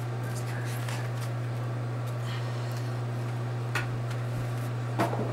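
Steady low room hum, like a fan or appliance, with a faint click a little under four seconds in and a sharper knock near the end.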